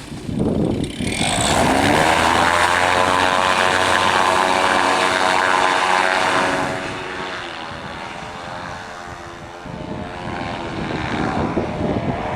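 Paramotor engine and propeller revving up to full power about a second in and holding steady, then throttled back to a lower, quieter run a little past halfway before picking up again near the end.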